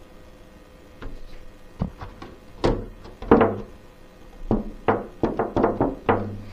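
Plastic RC touring-car body shell being handled and set down over the chassis: a run of irregular light knocks and hollow plastic thunks, the loudest a little over three seconds in.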